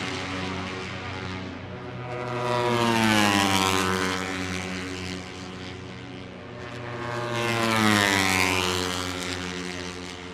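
Moto3 race motorcycles, 250 cc single-cylinder four-strokes, passing at speed. Two bikes go by, about three seconds and eight seconds in, each rising in loudness and dropping in pitch as it passes, over the steady drone of other bikes.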